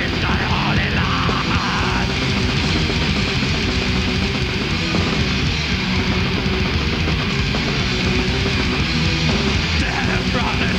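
Black metal band playing live: distorted guitars and drums in a dense, continuous wall of sound.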